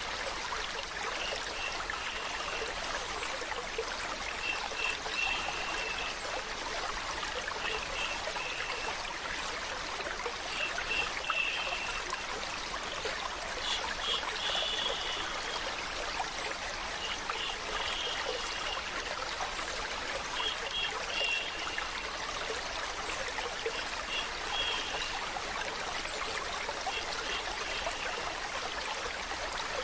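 Steady flowing water, like a stream or trickle, running without a break. Short high-pitched notes recur every couple of seconds.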